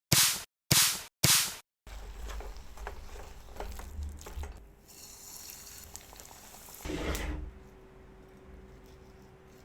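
Crispy potato snack being prepared or handled: five short, loud bursts in the first two seconds, each cut off sharply. These give way to quieter crackling with a louder burst about seven seconds in.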